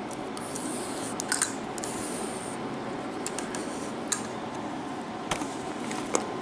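A few small, sharp metallic clicks and taps as lock-picking tools are handled and fitted to a mortise lock cylinder, over a steady background hiss.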